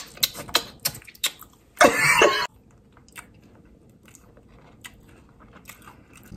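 A person eating a frosted cookie, with wet lip-smacks and mouth clicks in quick succession as she licks her fingers and chews. About two seconds in comes a short, loud, breathy sound from her, then quieter, sparse chewing.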